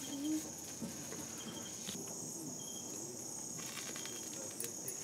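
Crickets chirping steadily in the background, with a few faint crackles near the end.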